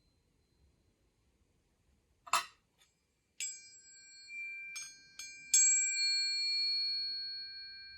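Tuning forks a perfect fifth apart struck several times and left ringing together as two clear high tones that slowly fade. The strikes start with a short knock about two seconds in.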